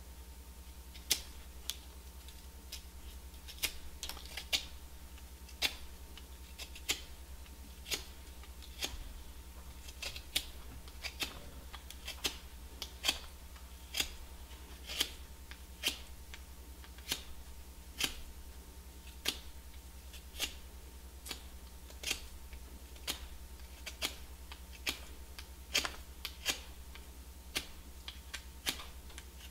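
A small hand knife cutting and paring a strip of cane for a clarinet reed. Each stroke gives a short sharp click, about one a second and unevenly spaced, sometimes two close together.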